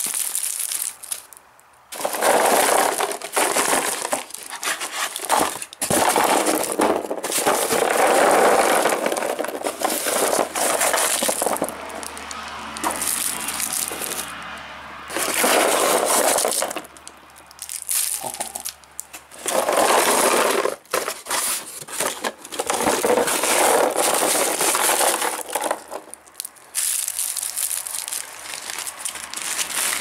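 Hands rummaging through foil- and plastic-wrapped sweets in a black plastic bin bag: crinkling and crackling of candy wrappers and bag plastic, in irregular bursts with short pauses.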